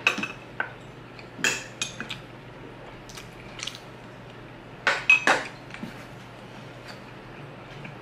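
Metal spoon and fork clinking and scraping as food is scooped up, in three short clusters: at the start, about a second and a half in, and about five seconds in.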